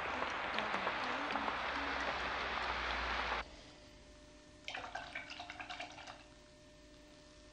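A loud, dense crackling hiss, like pouring water or rain, with a few faint low notes under it, cuts off abruptly about three and a half seconds in. Then, over a quiet room, a quick run of about a dozen sharp clicks and clinks comes from a painter working a small paint pot and knife.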